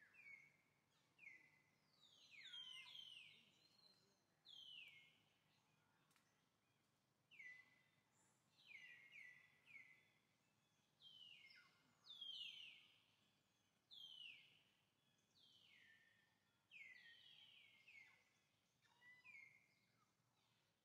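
A bird calling over and over, each call a high note sliding steeply down in pitch and levelling off, about one every second or two, over a faint outdoor hiss.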